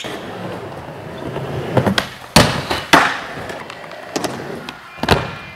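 Skateboard wheels rolling on indoor park ramps, broken by several sharp board impacts, the loudest about two and a half seconds in.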